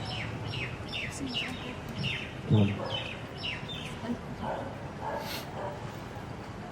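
A bird chirping: a run of short falling calls, about two a second, through the first three seconds or so. One louder low-pitched sound comes about two and a half seconds in.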